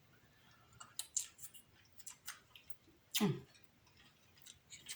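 Eating sounds of a seafood boil: scattered small clicks and crackles from crab-leg shells and chewing, with a brief low voiced sound about three seconds in.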